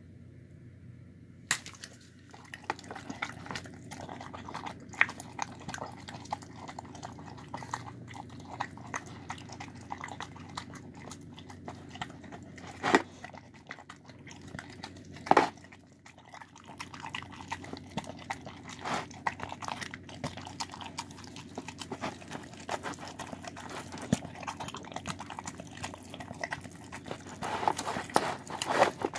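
A dog eating a soft meal of shredded chicken, rice, beans and vegetables from a bowl: continuous wet chewing and mouth noises, starting about a second and a half in. A few sharper clicks stand out about halfway through, and the chewing grows busier near the end.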